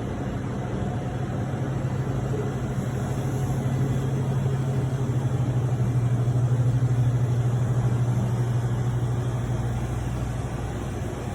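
Steady low machine hum with a rushing noise over it, growing slightly louder in the middle and easing off near the end.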